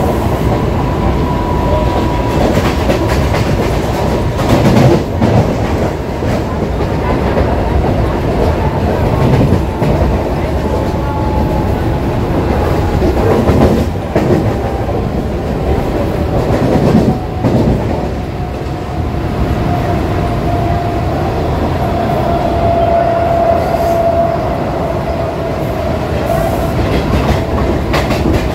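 Mumbai EMU suburban local train running, heard from inside the coach: a steady rumble of wheels on rail, with louder clatters over rail joints and points a few times. A thin whine slides slowly down in pitch.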